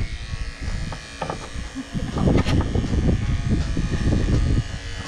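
Electric pet clippers running as they shave a long-haired cat's coat, the sound rising and falling unevenly as the blade moves through the fur.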